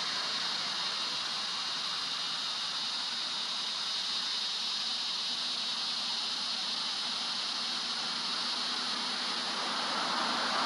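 Steady, even outdoor hiss with no distinct events, brightest in the high range; a louder noise starts to build near the end.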